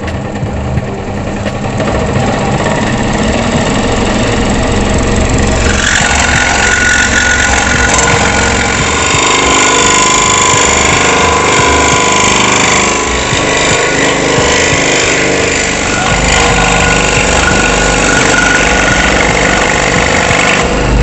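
Krisbow scroll saw running, its blade reciprocating with a steady mechanical hum and vibration. From about six seconds in the blade cuts into a pine board, adding a rough, hissy cutting sound over the motor.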